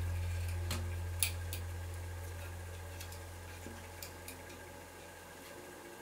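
Light scattered clicks and ticks from hand-stitching leather with a needle and thread, over a low steady hum that fades out.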